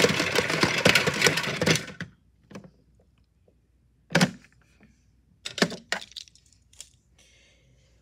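Toy washing machine's drum turning with a plastic toy dump truck tumbling inside, a dense clatter that stops about two seconds in. Then a few separate plastic knocks and clicks, the loudest about four seconds in, as the machine's door is handled and opened.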